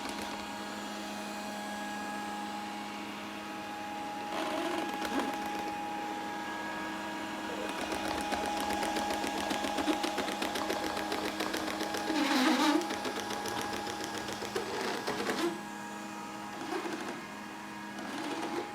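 Grundig VCR 2131 robot vacuum running: a steady motor hum, with a rapid even ticking through the middle and a few brief louder noises.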